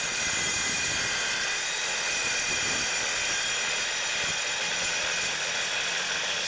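Evolution EVOSAW180HD metal-cutting circular saw running at full speed through 3/8-inch steel plate during a long rip cut: a steady, high-pitched, screeching blade-in-steel sound that holds an even level throughout.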